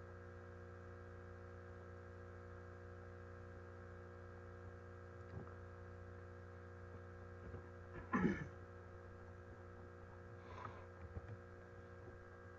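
Steady electrical mains hum, a low buzz made of many evenly spaced tones. About eight seconds in there is a brief louder noise, and a fainter one follows about two seconds later.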